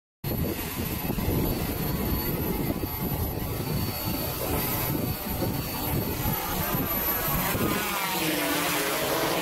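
Multirotor drone's motors and propellers running as it hovers and climbs, with a heavy low rumble. The sound cuts in suddenly, and after about seven seconds its pitch wavers up and down.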